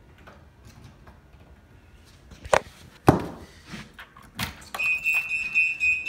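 A few sharp knocks, then from near the end a Minn Kota Talon deploy alarm sounds: a high, pulsing beep that warns the Talon anchors are still down.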